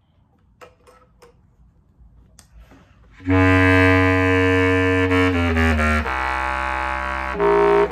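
A few faint clicks, then a bass clarinet comes in about three seconds in with a loud held low note. It steps down through a few notes to a lower held note, with a brief higher note near the end.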